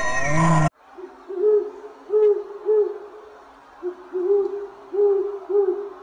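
Owl hooting: a series of short, low hoots, many in quick pairs. It starts just under a second in, after a louder sound with falling pitch is cut off abruptly.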